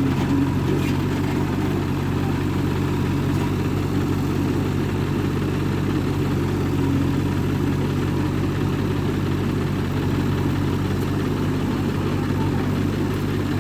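Heavy diesel engine idling steadily with an even low hum.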